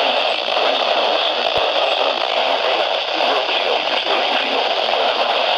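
NOAA Weather Radio broadcast heard through a weather-radio receiver: the station's synthesized voice reading a severe thunderstorm warning over constant static hiss. There is a brief click about a second and a half in.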